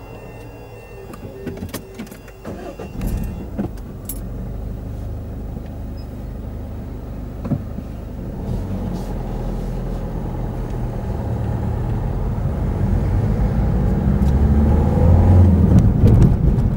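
A car pulling away and gathering speed, its engine and tyre noise rising steadily. A few sharp clicks come in the first few seconds.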